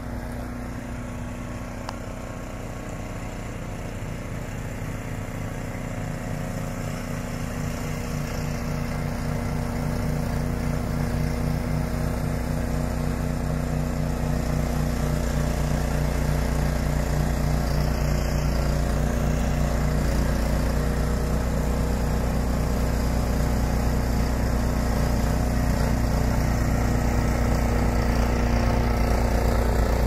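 Ariens Deluxe 30 two-stage snowblower engine running steadily under load while throwing snow. It grows louder over the first dozen seconds as the machine comes closer, then holds steady.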